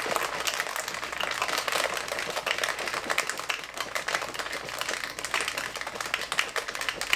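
Ice cubes and water rattling and sloshing in a plastic shaker cup that is being shaken hard and fast without a break. The rattle stops near the end.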